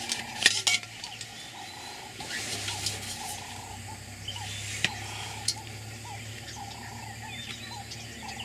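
A steady chorus of short, repeated animal calls, several a second, over a low steady hum. A few sharp clicks come about half a second in and again about five seconds in.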